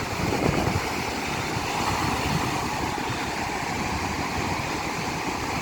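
Steady wash of the sea, with wind buffeting the microphone throughout.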